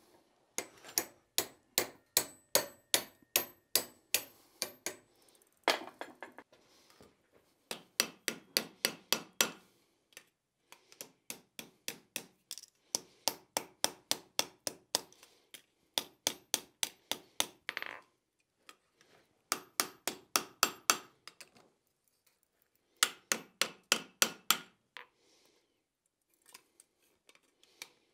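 Hand hammer striking hot steel in quick runs of blows, about four a second, with short pauses between runs, and a high metallic ring under the strikes. A drift is being driven into a forged hinge's eye to round out its teardrop shape, and the hinge is then hammered on the anvil.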